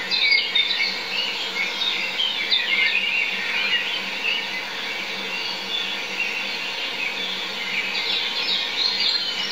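Small wild birds chirping and singing, with bursts of song in the first few seconds and again near the end, over a steady hiss.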